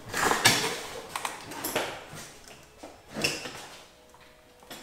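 A few clunks and scuffs of a snowmobile being handled by hand, the loudest near the start, growing quieter toward the end.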